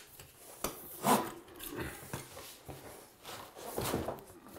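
Large cardboard box being handled and opened: scattered rubs, scrapes and light knocks on the cardboard.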